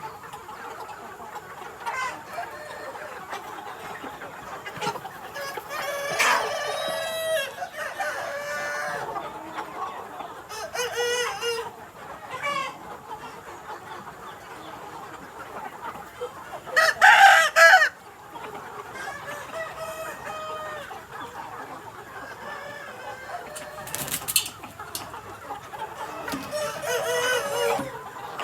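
Vietnamese Mia chickens clucking and calling, with a rooster crowing several times; the loudest crow comes a little past the middle.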